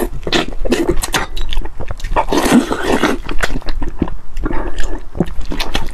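Close-up eating of a saucy braised chicken head: wet smacking and chewing, a quick run of sharp mouth clicks. About two seconds in comes a longer sucking slurp of about a second.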